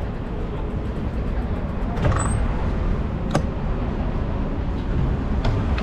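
Steady low rumble of city street noise, with a few sharp clicks about two, three and a half, and five and a half seconds in.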